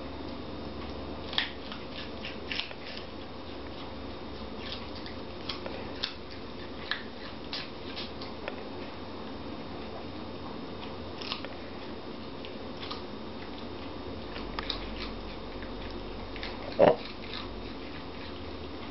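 A schipperke crunching and chewing a raw carrot, irregular crisp bites scattered through, with one louder short sound near the end.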